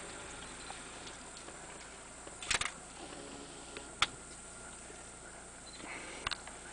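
Steady faint hiss with a few sharp clicks and knocks: a short cluster about two and a half seconds in, a single sharp click about four seconds in, and another near the end.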